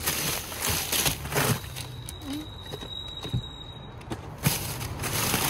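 Plastic bags and produce wrappers rustling and crinkling as gloved hands rummage through a bin of discarded groceries, in irregular bursts with a sharper one near the end.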